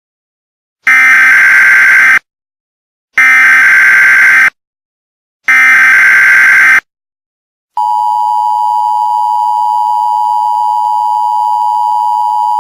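Emergency Alert System signal: three loud, evenly spaced bursts of the screeching SAME digital header tones, each over a second long, then the steady EAS attention tone starting about two-thirds of the way through.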